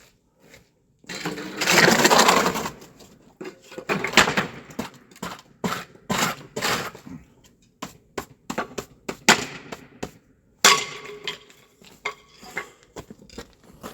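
Pieces of wooden pallet being broken and handled: a string of irregular wooden cracks, knocks and clatters, the longest and loudest about two seconds in.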